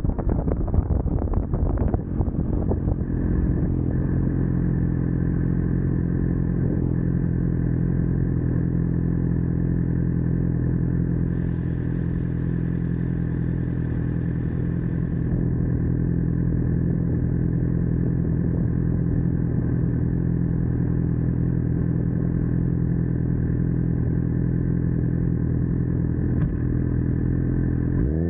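Suzuki GSX-R750 inline-four engine running at a steady idle, uneven for the first couple of seconds and then holding one even pitch. A brief hiss comes in for a few seconds near the middle.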